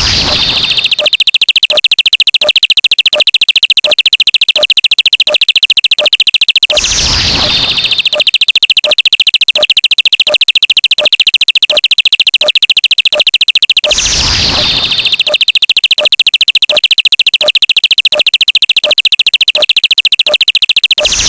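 Loud, looping synthesized electronic sound effects. About every seven seconds a falling chirp comes with a burst of noise, over a fast, buzzy high tone and a steady tick about twice a second.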